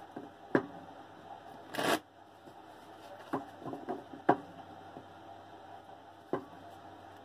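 A deck of tarot cards being shuffled by hand: scattered snaps and taps of cards every second or so, with a short rustle of the deck about two seconds in.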